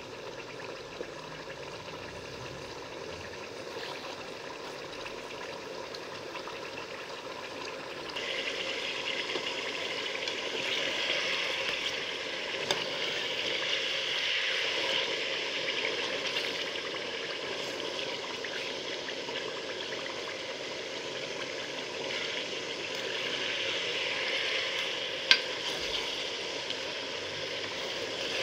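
Chicken pieces sizzling in hot oil in a metal pan, moved now and then with a steel ladle. The sizzle grows louder about a third of the way in, and there is one sharp click near the end.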